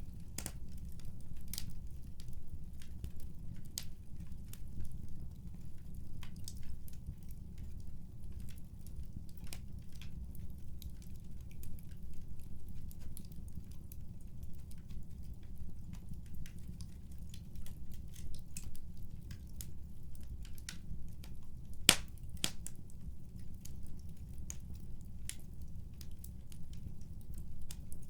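Wood fire crackling: a steady low rumble with scattered irregular pops and snaps, one sharper pop about 22 seconds in.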